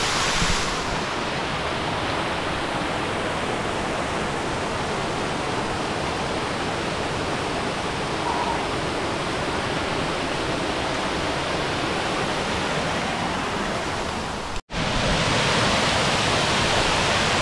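Steady rush of flowing river water. Near the end it cuts out for an instant and returns louder and brighter.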